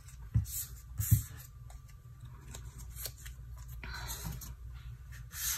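Paper die-cut stickers being picked up and slid across a tabletop by hand, with soft paper rustling and a couple of light taps about half a second and a second in.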